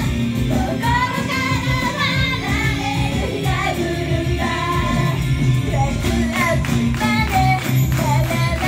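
Japanese idol girl group singing a pop song live, voices over a backing band sound with a steady bass and beat.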